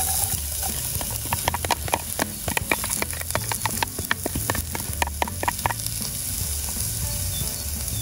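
Diced onion and garlic sizzling in hot oil in a stainless steel pot, the hiss starting as they are tipped in and going on steadily with many small crackling pops.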